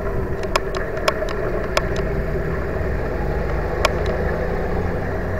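Riding noise from an e-bike moving along a paved bike path: a steady low rumble of wind and tyres, broken by several sharp clicks and rattles.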